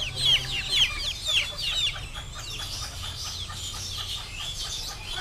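Chickens at a poultry stall calling: repeated short, high calls falling in pitch, about two a second, loudest for the first two seconds, then fainter overlapping calls.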